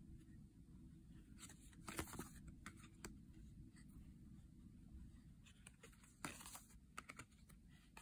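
Faint handling of laminated tarot cards: soft slides and taps as cards are turned over and laid on the pile, with a louder cluster about two seconds in and another a little past six seconds.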